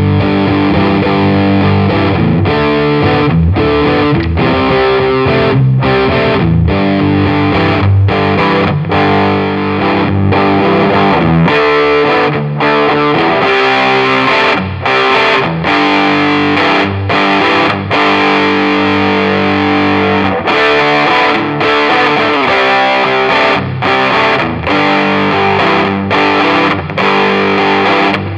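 Electric guitar played through the Greenballs FX / Wild West Yorkshire Co. Shakey Wakey, a Tube Screamer-style overdrive pedal. It plays sustained overdriven chords and phrases with short stops between them, and the stops come more often in the second half.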